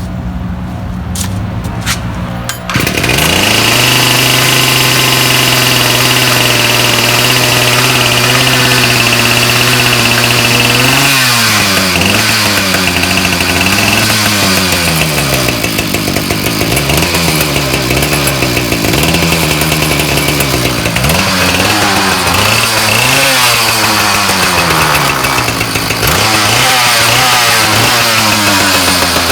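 Ryobi 705r 31cc two-stroke trimmer engine pull-started, catching about three seconds in and idling steadily. From about eleven seconds in it is revved up and down over and over, while the trimmer head fails to spin with throttle.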